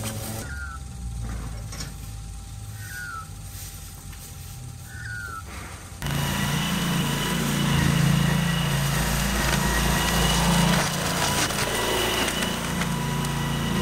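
AS Motor 901 flail mower, a low faint hum at first, then from about six seconds in its engine and flail rotor running loud and steady at working speed. Three short high chirps sound in the quieter first part.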